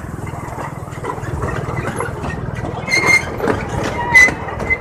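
Open-sided canopied ride vehicle running steadily as it moves along, a low engine rumble with rattling clicks. Two short high-pitched squeals come about three and four seconds in.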